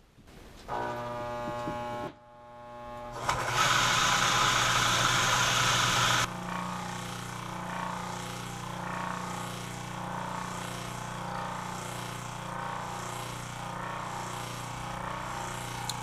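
Salvaged washing-machine induction motor, powered on its run winding alone, hums in place for about a second and a half, then is spun by hand and comes up to speed with a loud whirring rush lasting about three seconds. It then settles into a steady running hum, with the centrifugal clutch locked up and turning 1-to-1 with the shaft at about 1790 rpm.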